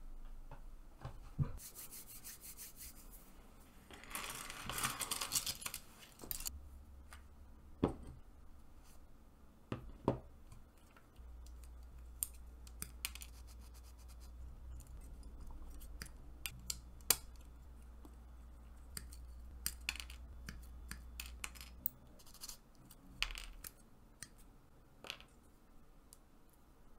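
Plastic model kit parts being cut from their runners and handled, making sharp snips and small plastic clicks scattered throughout. About four seconds in there is a couple of seconds of rapid scratchy clicking.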